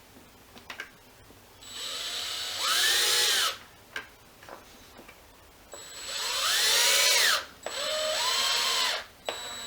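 Electric drill-driver driving a screw into a wooden dowel in three runs, the motor whine rising as it speeds up and falling as it slows.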